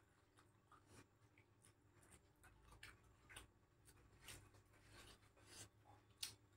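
Faint eating sounds: chewing and mouth smacks, and fingers working rice against a steel plate and bowl, heard as scattered soft clicks and rubs, with one sharper click near the end.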